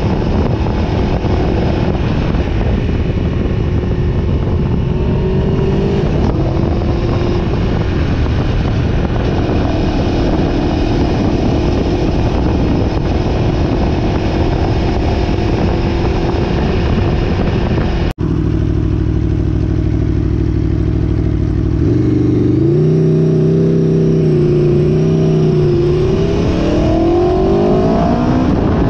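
Aprilia Tuono V4 1100 RR's V4 engine under way, heard from onboard over wind noise. It cuts out for an instant about 18 seconds in, then holds a steady note before rising in pitch several times near the end as the bike accelerates.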